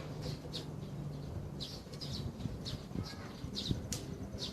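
Small bird chirping repeatedly, short high chirps a few times a second, with a sharp click just before the end.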